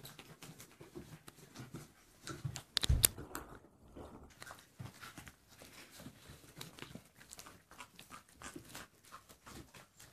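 A litter of puppies chewing and tearing at raw meat carcass pieces: scattered small clicks, smacks and crunches, with a louder thump about three seconds in.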